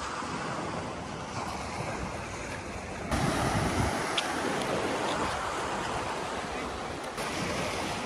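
Small sea waves washing and foaming over a rock shelf, with wind on the microphone; the surf gets louder about three seconds in.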